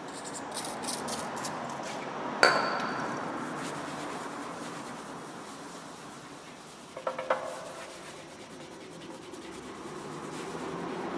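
A few short hissing spurts from an aerosol degreaser can, then a sharp knock with a brief ring about two and a half seconds in. After that comes a steady rubbing of a microfibre cloth wiping the painted motorcycle fuel tank, with a couple of small knocks around seven seconds in.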